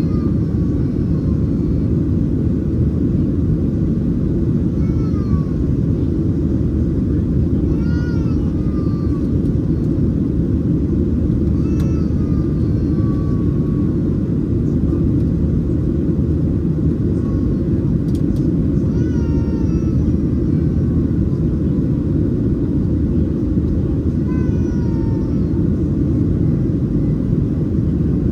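Steady low cabin roar of a Boeing 737-700 in its climb, the CFM56-7B engines and rushing airflow heard from a window seat. Faint, high calls that fall in pitch come through every few seconds.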